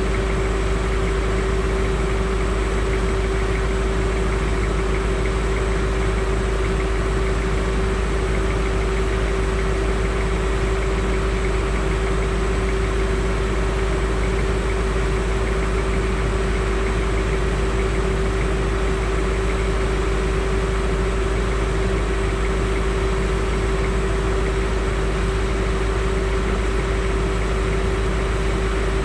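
Parked Land Rover Discovery 2's engine idling steadily, heard from close under the front bumper, with a constant low rumble and an even hum.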